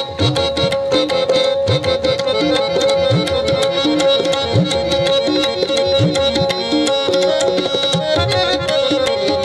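Tabla playing a steady, busy rhythm over a held drone note. Its bass drum strokes bend upward in pitch about once a second.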